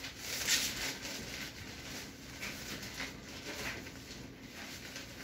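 Thin plastic sheeting and brown paper crinkling and rustling in soft, irregular bursts as they are pulled tight and pressed up against the ceiling.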